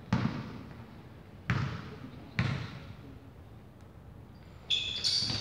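A basketball bounced three times on the sports hall floor, each thump followed by the hall's echo, with the third coming close after the second. High squeaking comes in near the end.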